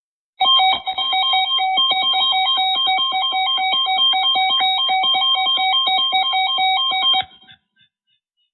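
Electronic emergency alert tone from a weather radio broadcast: several steady high tones held together with a rapid, uneven flutter, lasting about seven seconds and then cutting off sharply.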